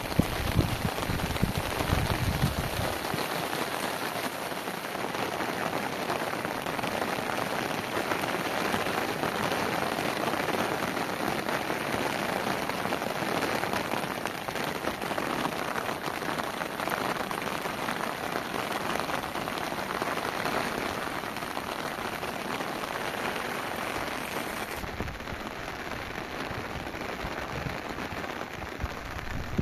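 Steady heavy rain falling, an even hiss with no break. A low rumble under it fades out in the first few seconds.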